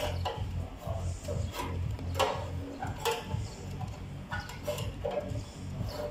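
Cascade 003 straight-cut hand snips cutting thin sheet steel, a short crisp crunch with each squeeze of the handles, coming irregularly about once or twice a second, over a steady low hum.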